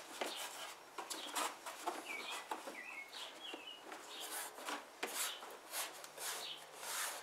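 Hands and a plastic Bushwacker Trail Armor rocker panel cover scuffing and rubbing against the truck's rocker panel, with light knocks as the piece is fitted. A few faint bird chirps come in around the middle.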